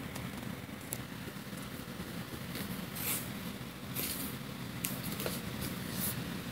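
Handling noise from a wooden box being turned over on a cloth-covered surface: a few short scuffs and rustles, about one every second, over a steady low hum.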